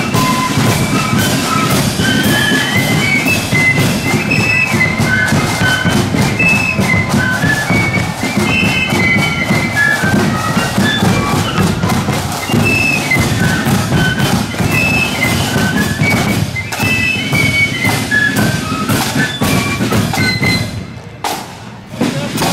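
Marching flute band playing a quick march tune: a melody of many flutes in unison over continuous snare and bass drumming. The music breaks off near the end.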